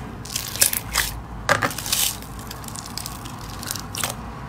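Clear glitter slime pressed and squeezed under fingers, giving irregular sticky crackles and pops, a few in the first two seconds and another near the end.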